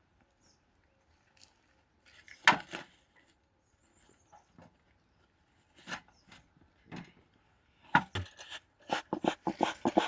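Bee smoker bellows being pumped in quick puffs, about three a second, from about 8 s in, to get the sack fuel smoking well. Before that, a few scattered knocks and rustles from handling the smoker, the loudest about 2.5 s in.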